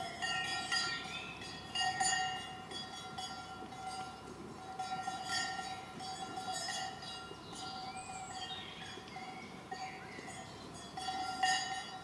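Brass cowbell hanging from a grazing cow's collar, ringing on one steady pitch with bright overtones as the cow's movements swing it, re-struck at irregular moments with louder strikes about two seconds in and near the end.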